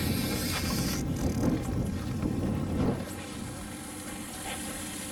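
Wind buffeting the microphone over the steady drone of the boat's engine and the water; the wind rumble drops away about three seconds in, leaving the quieter engine hum.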